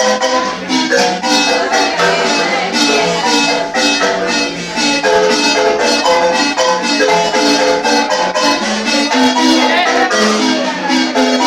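Wooden marimba played with mallets by two players: a lively, fast-moving piece of quick struck notes over rolled, sustained lower notes.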